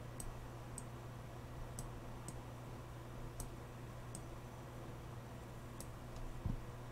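Faint computer mouse clicks, about eight at irregular intervals, over a steady low hum.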